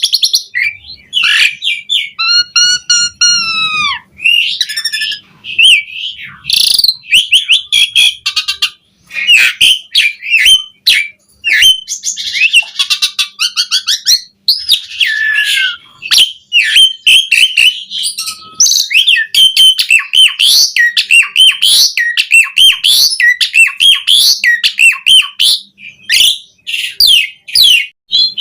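Asian pied starling (jalak suren) in full song: a rapid, varied stream of whistles, chirps, sweeping notes and harsh squawks, including mimicked phrases of other birds. A drawn-out, arching whistled note comes about two seconds in.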